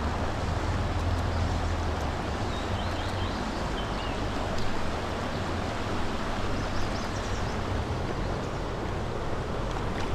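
Steady rush of creek current flowing around a wading angler's legs, with a low rumble underneath and a few faint high chirps about three seconds in.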